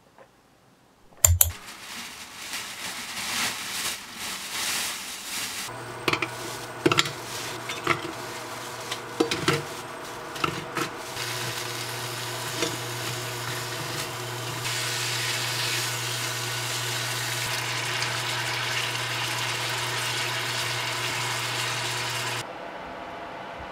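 Thin slices of meat frying in a nonstick pan, turned with tongs that click against the pan, over a steady low hum. A sharp knock about a second in; the sizzling grows denser about halfway through, and the sound cuts off shortly before the end.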